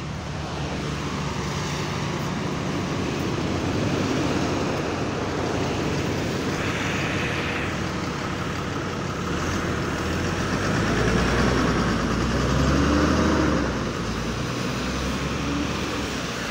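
A bus running at the stop and pulling away, its engine rumbling, over steady traffic and tyre noise on a wet road. In the second half a whine rises and falls in pitch as the engine rumble swells.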